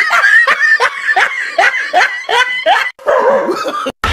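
A frightened dog yelping as it flees: a quick run of short yelps, each falling in pitch, about three a second.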